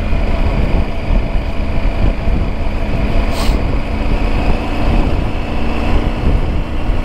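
Motorcycle riding at road speed: heavy wind rumble on the helmet microphone over a steady engine drone, with a brief hiss about three and a half seconds in.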